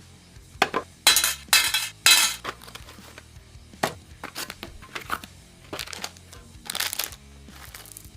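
Background music with a steady low bass line, overlaid by a series of sharp clicks and short hissing bursts. The bursts are loudest about a second in, cluster for the next second and a half, and come again near the end.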